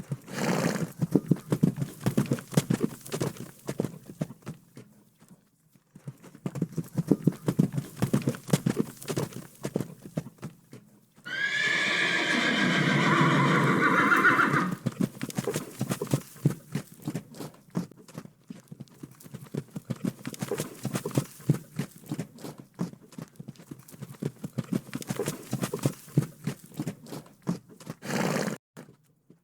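Horse hooves clip-clopping in a quick, irregular patter, pausing briefly twice. About eleven seconds in, a horse gives one loud whinny lasting three or four seconds.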